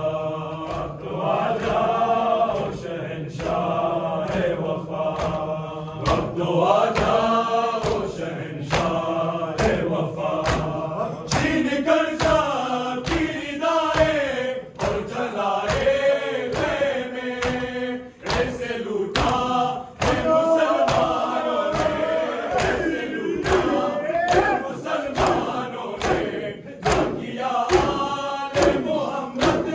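A group of men chanting an Urdu noha, a Muharram lament, together, over a steady beat of sharp slaps from hands striking chests (matam). The slaps are about one a second at first and come roughly twice as fast from about eleven seconds in.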